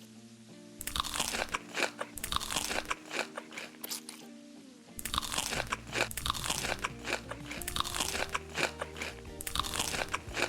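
Loud, close crunchy chewing as a person bites into and chews crisp food, in two long stretches with a short pause about four seconds in.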